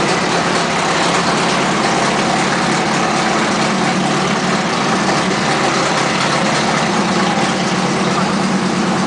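Wrecker crane truck's engine idling steadily and loudly, with no change in speed.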